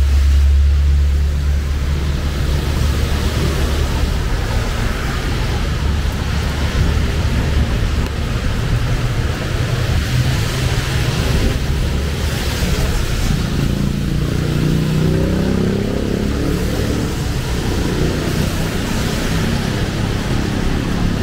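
Heavy rain falling steadily on a city street with road traffic, a deep rumble in the first few seconds.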